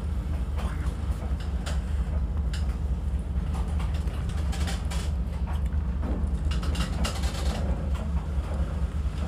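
A steady low rumble with scattered light clicks and clinks of chopsticks against metal bowls.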